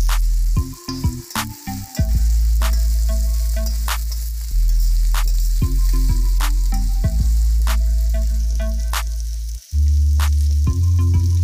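Vegetables and sweet corn sizzling as they are stir-fried in a steel wok. Background music with deep bass notes and a regular beat plays over the sizzle.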